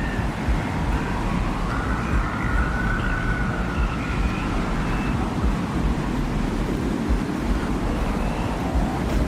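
Steady low desert-wind rumble in a produced ambient soundscape. Faint high whistling tones waver, slowly rising and falling, above the rumble.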